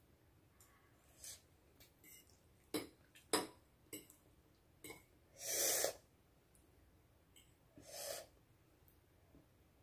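A few light clicks of a fork against a plate, then two sharp, noisy breaths, the longer one a little past halfway. Someone is breathing hard through the burn of very spicy noodles.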